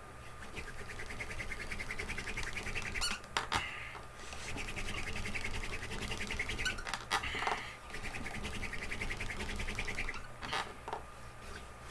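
Wooden hand-drill spindle spun between the palms in a hearth board, squeaking rapidly with friction in three passes of about three seconds each, with short pauses and knocks in between.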